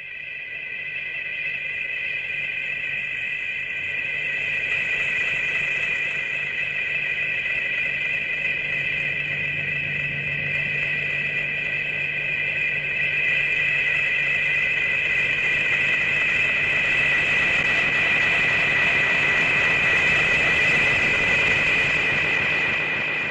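Sound effect from the Showa-era Gamera films: a steady, high two-tone whine over a low hum and hiss. It fades in at the start and holds for the whole stretch, getting slightly louder and noisier in the second half.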